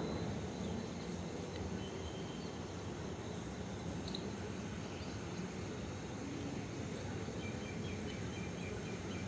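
Outdoor background noise: a steady low rumble, with a brief faint chirp about four seconds in and a few short faint chirps near the end.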